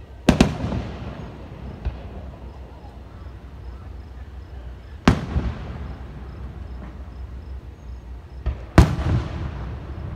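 Aerial firework shells bursting: three loud booms, one just after the start, one about five seconds in and one near the end, each trailing off in a rolling echo.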